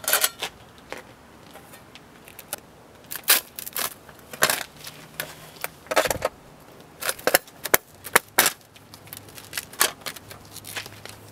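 Irregular metal clicks and clinks as a metal flashing plate is set down on roof shingles and a washer and nut are fitted by hand onto a lag bolt.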